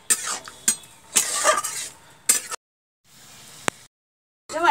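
Metal spatula scraping and stirring greens frying in a metal kadai, in short scrapes and knocks, broken twice by abrupt cuts to silence; a single sharp click just before the last cut.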